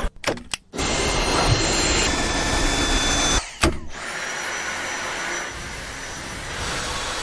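Dyson V8 cordless stick vacuum running: a steady rush of air with a high whine. It breaks off briefly near the start and again about three and a half seconds in.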